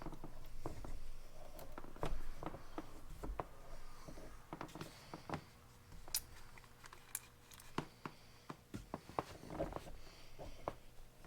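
Irregular small clicks, taps and short scrapes of metal parts and hand tools being handled, from hand-tapping 3/8 pipe threads into a pressure-washer fitting.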